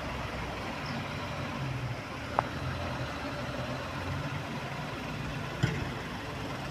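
Diesel engine of a loaded tipper truck running steadily as it pulls away, with two short sharp knocks partway through.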